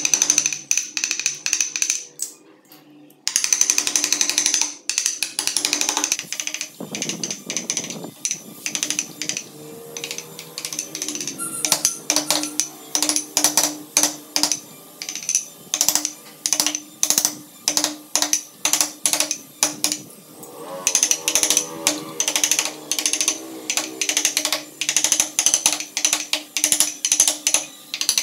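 Wooden mallet striking a steel carving chisel as it cuts into wood, a steady run of sharp taps about two a second.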